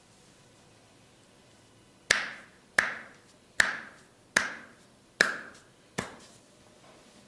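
Six sharp, evenly spaced snaps from a barber's hands during a head massage, about 0.8 s apart, each ringing off briefly.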